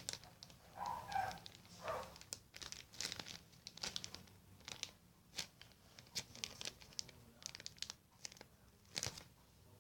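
Irregular crinkling and rustling as a handmade banana squishy is turned over and squeezed in the hands, in short bursts a few times a second.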